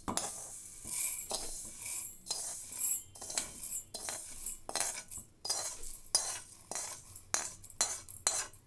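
A steel spoon scraping dry-roasted lentils and barley out of a pan and tipping them into a stainless-steel mixer-grinder jar: repeated metal scrapes with the grains rattling into the jar, the strokes coming faster near the end.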